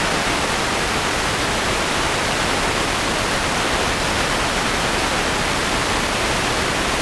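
Steady, loud static hiss from a blank, unrecorded stretch of videotape playing back: the noise that goes with the picture's snow.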